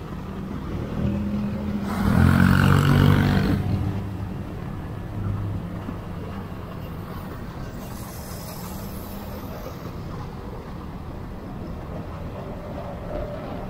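Road traffic heard while riding a motor scooter: a steady engine and road hum. About two seconds in, a much louder vehicle passes close for about a second and a half.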